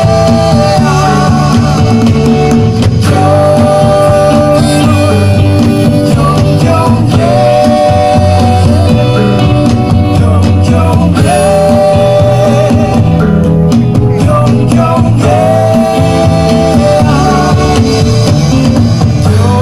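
Live band music: a song with a sung melody of long held notes over guitar and a steady bass line.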